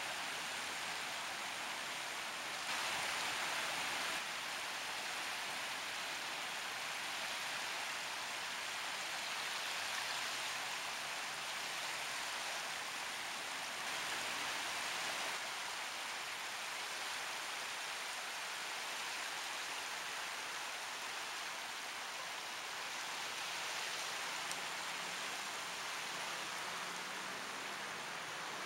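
Steady rushing hiss of water, even throughout, that grows louder for a moment about three seconds in and swells again about halfway through.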